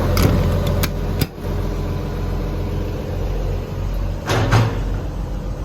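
Hitachi EX200-2 excavator's Isuzu 6BD1 six-cylinder diesel idling steadily. A few sharp clicks sound in the first second and a half, and a louder thump about four and a half seconds in.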